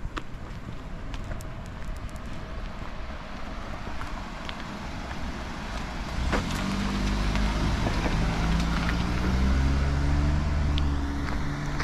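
Road traffic noise, with a motor vehicle's engine running close by from about six seconds in and growing louder.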